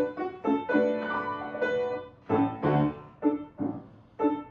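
Solo piano playing an interlude between verses of an operetta aria, separate chords and notes about every half second.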